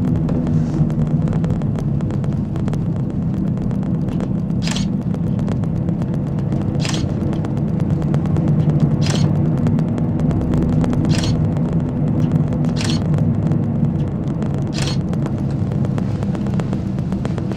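Panoramic Mont Blanc gondola cabin running along its cable at full speed, heard from inside the cabin: a steady low rumble with a faint hum. From about five seconds in, a short high hiss recurs roughly every two seconds.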